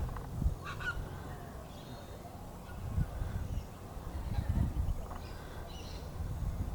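A few short, faint bird calls and chirps from the parent bird and its chick, over a low rumbling background.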